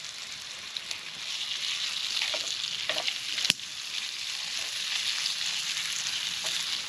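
Fatty bacon sizzling in a skillet over a campfire, rendering its grease; the sizzle grows louder after about a second, with one sharp pop about three and a half seconds in.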